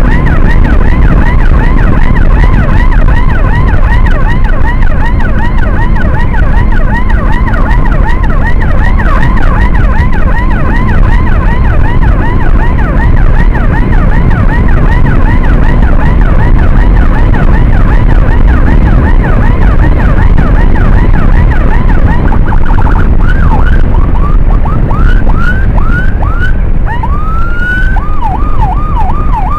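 Electronic emergency siren on a fast yelp, rapid rising-and-falling sweeps several times a second; late on it switches to slower separate rising whoops with one long rise, then back to the fast yelp near the end. Under it, heavy low rumble of wind and road noise from the moving motorcycle.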